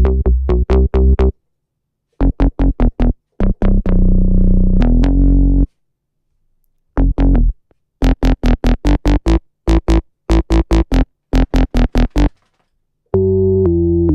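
Serum 2 synth bass preset, a sub bass, playing a choppy pattern of short notes with dead silence between them, mostly quick runs with a longer held stretch about four seconds in. Near the end a fuller, brighter bass patch comes in and holds.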